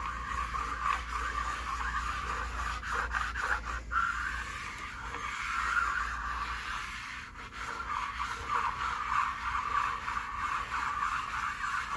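A flat abrasive stone rubbed back and forth over a milling machine's steel-topped table, a steady gritty scraping. This is stoning the table to knock down high spots and dings.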